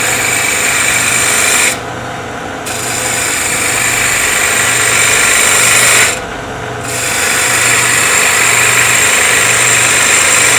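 Shallow fluted spindle gouge cutting a wooden spindle turning on a lathe at 1800 RPM: a steady hiss of wood being cut over the hum of the lathe motor. The cutting noise stops briefly twice, about two seconds in and about six seconds in, then resumes.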